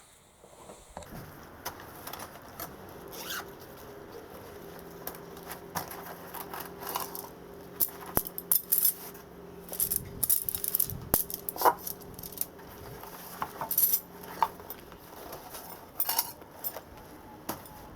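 Steel round-bar and flat-bar pieces of a homemade fire-pit frame clinking and tapping against each other as they are fitted together: an irregular string of sharp metallic clinks.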